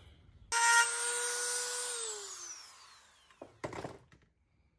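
Dremel rotary tool running at high speed with a steady whine, then switched off and spinning down, its pitch falling over about a second. Two short scraping sounds follow near the end.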